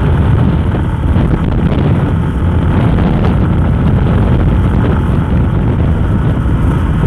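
Steady rush of wind on the microphone over the running engine of a Yamaha Sniper 150 motorcycle on the move.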